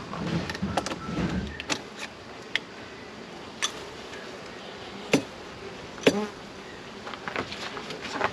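Honeybees buzzing around an opened hive, with a series of sharp knocks and clicks as hive frames and boxes are handled; the two loudest knocks come about five and six seconds in.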